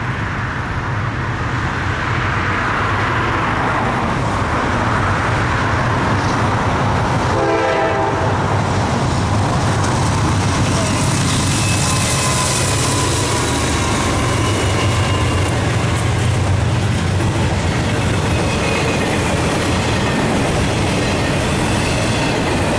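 A Norfolk Southern intermodal freight train approaching and passing behind three GE diesel locomotives (a Dash 9-40CW, an ES44AC and a Dash 8-40CW), their engines running loudly as they go by about halfway through. A short horn sound comes about seven seconds in, and the double-stack container cars then roll past.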